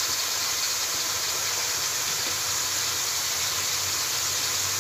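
Pieces of meat frying in hot oil in a metal pot, giving a steady sizzle.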